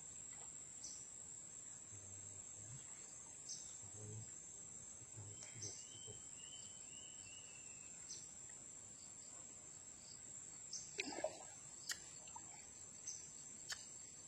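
Crickets chirring with one steady, high-pitched drone. A few faint knocks and rustles come around the eleven-second mark and again near the end.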